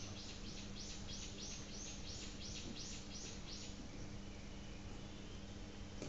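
A run of high, evenly repeated chirping calls from a small animal, about three a second, stopping a little under four seconds in. A faint steady low hum and hiss runs underneath.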